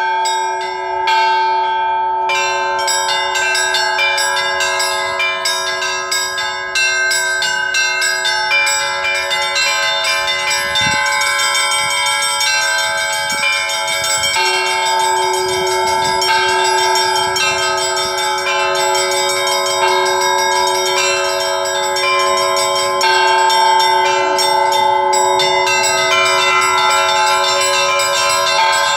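Russian church bells rung by hand in a peal (zvon): rapid strikes of small high-pitched bells over the steady ring of larger, deeper bells. The small bells grow denser about two seconds in.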